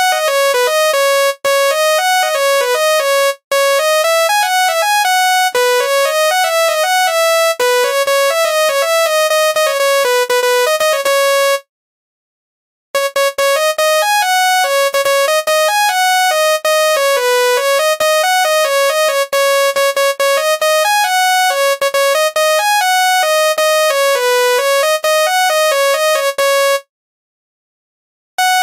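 Telolet basuri multi-tone bus horn playing a quick melody of single notes. It stops briefly about 12 seconds in and again near the end, then starts the tune over.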